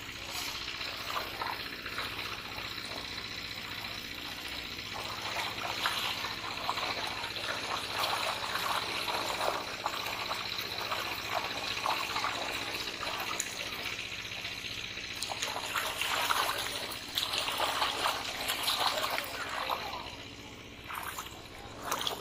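Shallow muddy water splashing and churning as a fishing net is dragged through a pond, with fish thrashing in the water near the net.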